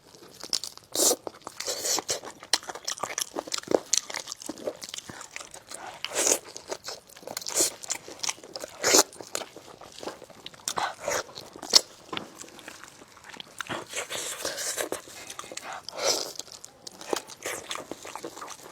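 Close-miked eating of a fatty braised spicy lamb chop: irregular bites and chewing, with many short sharp clicks throughout.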